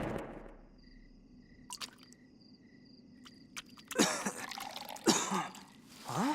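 Cartoon soundtrack: the preceding loud music cuts off at the start. Faint high pulsing tones follow with a couple of soft clicks, then from about four seconds in several short sound effects with swooping pitch.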